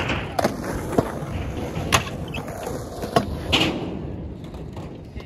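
Stunt scooter wheels rolling on concrete, with several sharp clacks as the scooter hits the ground.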